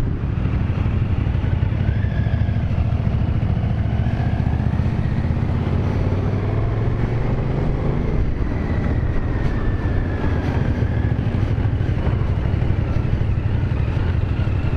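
Motorcycle riding at road speed, heard from a helmet-mounted camera: the Aprilia Caponord 1200 Rally's V-twin engine running steadily under a heavy wind rush on the microphone.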